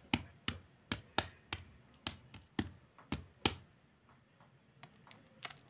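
A hard-boiled egg tapped repeatedly against a hard floor to crack its shell: sharp taps about three a second, stopping about three and a half seconds in, with a few faint taps near the end.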